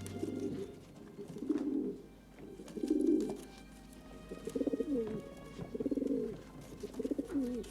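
Racing pigeons cooing: a string of low, warbling coos, one about every second.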